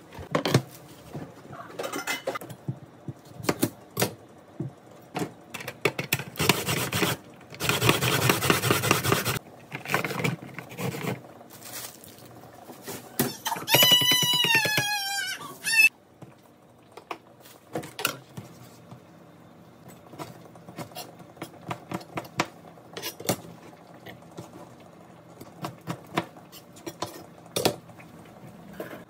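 Kitchen counter handling sounds: knocks and clatter of plastic containers and food packaging being moved and set down, with a long plastic rustle about six to nine seconds in and a high squeal falling in pitch around the middle. Scattered sharp clicks and knocks follow to the end.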